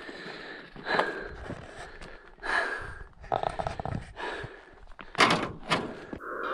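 Footsteps crunching and scraping on stony ground, irregular and uneven, with a cluster of sharp crunches about five seconds in.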